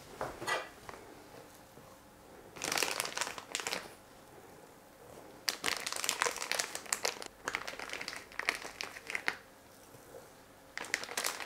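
Plastic piping bag crinkling in several bursts as soft spritz-cookie dough is spooned into it.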